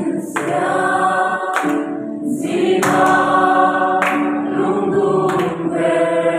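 A group of young men and women singing together in a room, with hand claps falling regularly about every second and a quarter.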